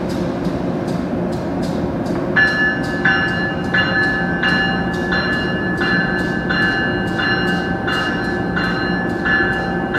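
Amtrak AEM-7 electric locomotive and its train rolling past a station platform, with a steady hum and regular clicks about three a second. About two seconds in, a bell starts ringing in repeated strokes.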